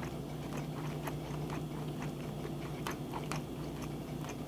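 A person chewing a bite of seared bigeye tuna (tataki), with soft, scattered wet mouth clicks over a steady low hum.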